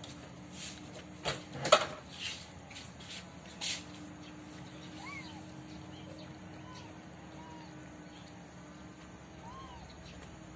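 A few sharp knocks and rustles in the first few seconds, then faint short chirping calls, each rising and falling, repeating about once a second over a low steady hum.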